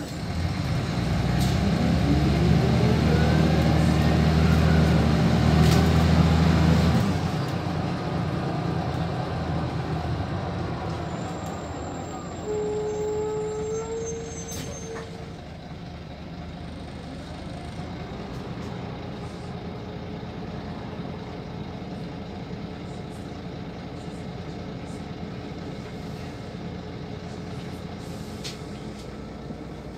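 Van Hool AG300 bus engine heard from on board, running loud for the first seven seconds with a rising whine, then dropping back. A short squeal follows about twelve seconds in as the bus comes to a stop, then the engine idles quietly.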